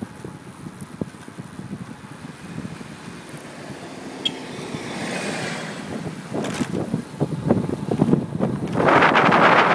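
Wind rushing over the camera microphone on a road bicycle descending fast. The rush grows much louder about nine seconds in.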